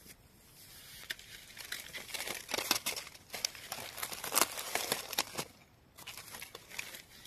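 Dry leaf litter rustling and crackling in dense, irregular bursts during mushroom picking, with a short lull before a few last crackles near the end.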